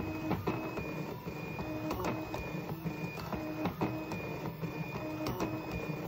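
Stepper motors of a Rubik's cube solving machine turning the cube's faces in quick succession: a rapid series of short whining tones at changing pitches, separated by clicks.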